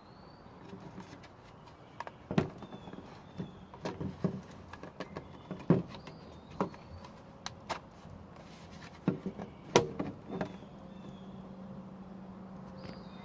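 Irregular sharp clicks and knocks of a plastic mosquito trap being handled and opened to check its catch, with faint short bird chirps behind.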